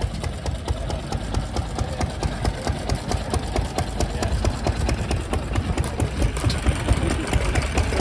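Vintage stationary engines running, a rapid, uneven knocking of firing strokes over a low engine rumble.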